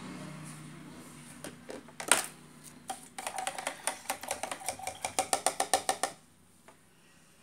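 A single sharp click about two seconds in, then a rapid run of light clicks with a faint ring, about eight a second and speeding up slightly, for about three seconds before stopping suddenly.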